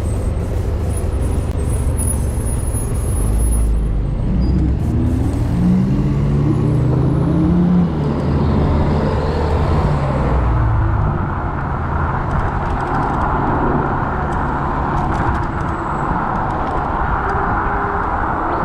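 City road traffic: motor vehicle engines running close by, their pitch rising and falling over a few seconds as they change speed, over a steady rush of road noise.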